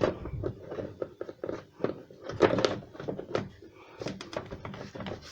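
Plastic air intake duct being fitted over the intercooler of a Ford Transit Connect: a run of irregular plastic knocks and clicks as it is pushed into its slots.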